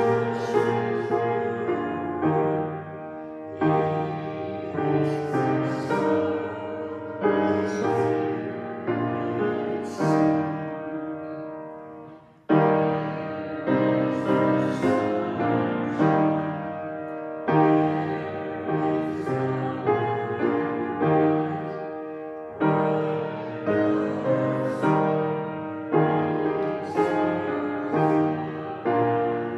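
Piano playing a hymn in full chords, each chord struck and dying away. It breaks off briefly about twelve seconds in, then starts again.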